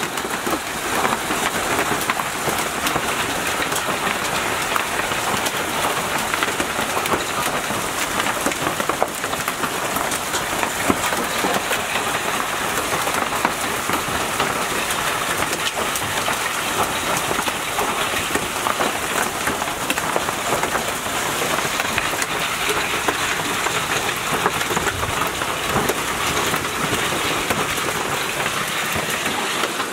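A hailstorm with heavy rain pelting down: a dense, steady clatter of hailstones and rain hitting the ground.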